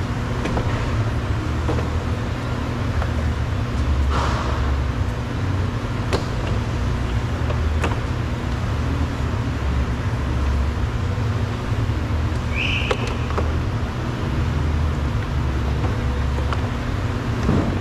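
A vehicle engine idling with a steady low drone, with a few sharp clicks and knocks and one short hiss partway through.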